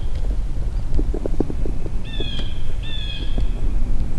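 A songbird calling twice, each call a short falling whistle, over a steady low rumble. A brief run of short crackles comes about a second in.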